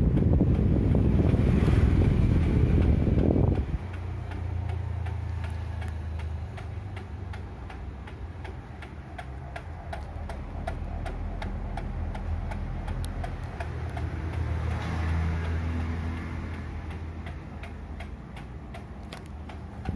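Old Maspion F-160S four-blade stand fan running: for the first few seconds its airflow rushes loudly on the microphone, then the electric motor hums steadily under a stream of rapid, irregular ticking. The owner links this ticking to the fan no longer oscillating.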